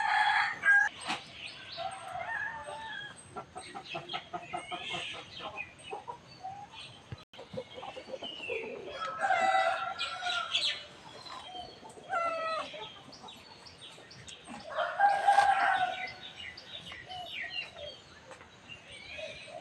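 Roosters crowing several times, with clucking between the crows.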